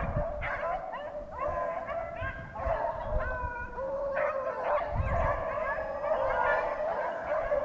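A pack of rabbit hounds baying and howling together as they run a freshly jumped rabbit, their voices overlapping without a break.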